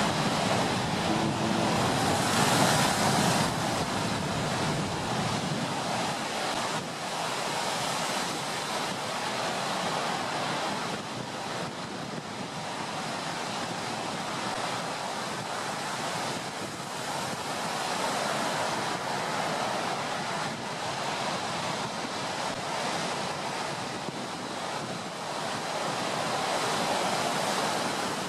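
Stormy ocean surf: waves breaking and washing in a steady rush that swells and eases every several seconds, with wind.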